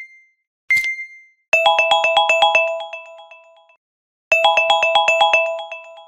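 Countdown timer reaching zero: one last tick-beep, then the electronic alarm, a quick run of bright chime notes that rings out and plays a second time.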